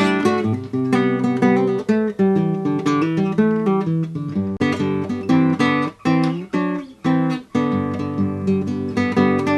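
Instrumental theme music with plucked and strummed acoustic guitar.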